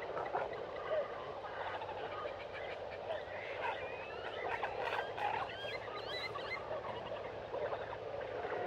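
A busy chorus of small animal chirps and twittering calls, many overlapping, with a run of rising and falling whistled calls in the middle.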